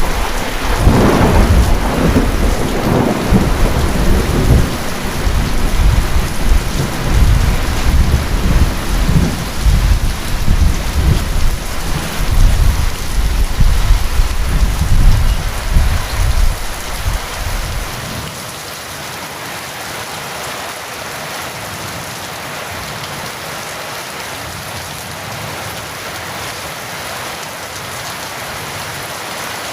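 Steady heavy rain with a long, rolling rumble of thunder that dies away about eighteen seconds in, leaving only the even hiss of the rain.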